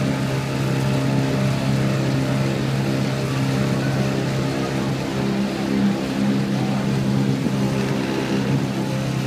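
Outboard motor of a small aluminium boat running steadily under way, a constant engine hum.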